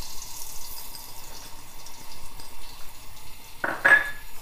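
Hot oil in a wok sizzling faintly as salt and pepper are sprinkled in, with a short ringing clink about three and a half seconds in.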